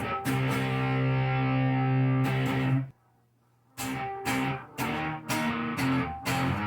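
Electric guitar played through an amplifier: a chord left to ring for nearly three seconds and then cut off sharply. After a short silence come short, choppy strummed chords at a steady rhythm.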